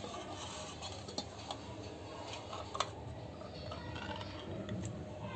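Ring-pull lid of a tin of sardines being levered up and peeled back: small metallic clicks and crackling, with a sharp click a little under three seconds in.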